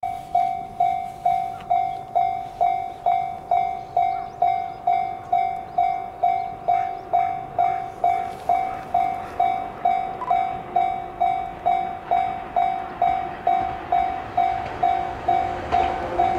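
Japanese level-crossing warning bell ringing steadily, about two strikes a second, the signal that a train is approaching.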